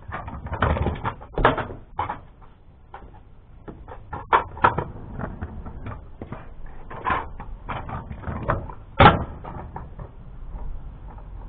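Kick scooter clattering over concrete paving slabs: irregular sharp knocks and rattles from its small hard wheels and deck, the loudest knock about nine seconds in.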